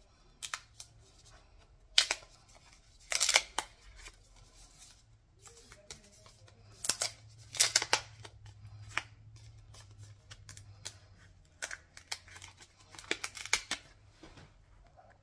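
Wrapping paper being pulled and torn off a small box by hand: short, irregular crackles and rips, the loudest about two seconds in and again around the middle.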